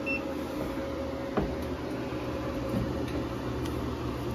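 Steady electrical hum and fan noise from an inverter running an electric heater under a load of about 1400 watts, with a single click about one and a half seconds in.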